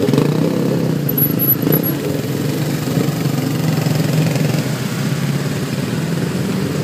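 Motorcycle engines running steadily at low revs as a group of motorcycles and scooters ride slowly in a line over a rough dirt road.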